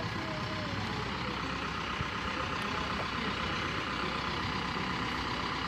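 A large vehicle's engine running steadily under a constant street background noise.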